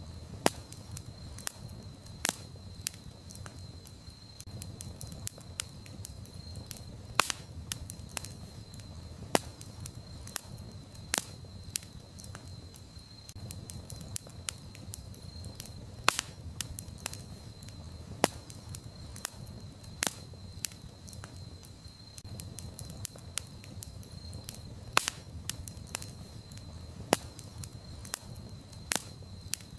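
Campfire crackling: burning wood giving irregular sharp snaps and pops, a dozen or so of them loud, over a low steady rumble. Behind it runs a steady high thin tone.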